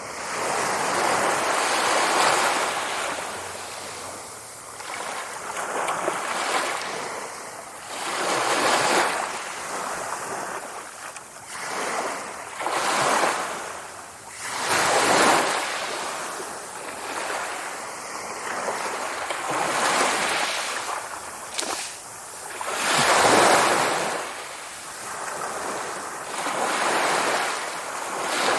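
Sea waves breaking and washing on a shore, each wave swelling and falling away every few seconds, a few of them louder than the rest.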